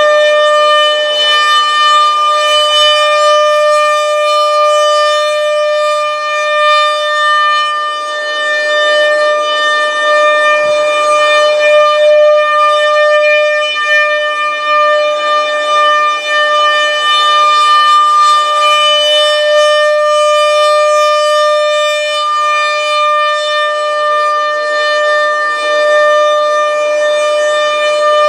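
ASC RM-130 rotating outdoor warning siren sounding a steady alert tone of about 600 Hz, heard from inside a car. The pitch holds level while the loudness slowly swells and fades as the horn turns.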